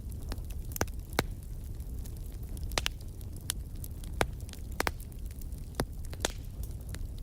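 Wood fire crackling in a fireplace: about ten sharp, irregular pops and snaps over a low, steady rumble of flame.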